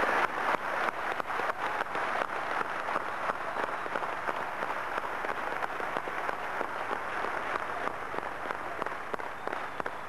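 Crowd applauding: many hands clapping, individual claps standing out in the first few seconds before it settles into a steady, even applause.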